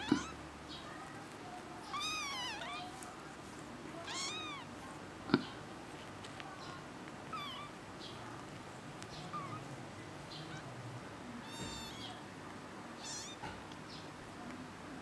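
Young kittens mewing: several high, arching mews, with smaller squeaks between them. A couple of sharp knocks, the loudest about five seconds in.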